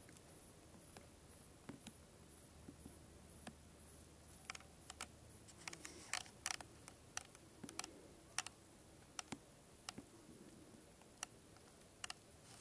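Near silence broken by sharp, irregular clicks, thickest around the middle. A faint, high-pitched pulsing tone runs through the first few seconds.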